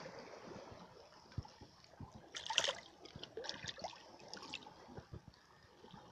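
Shallow seawater trickling and lapping over rock, with a sharp burst of splashing about two and a half seconds in and a few smaller splashes after it.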